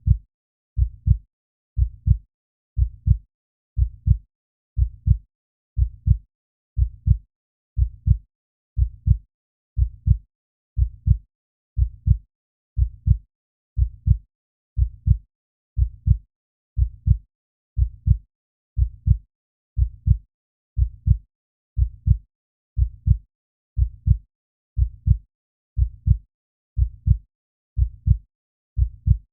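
Heartbeat sound effect: a steady lub-dub, two low dull thumps close together, about one beat a second with silence between beats.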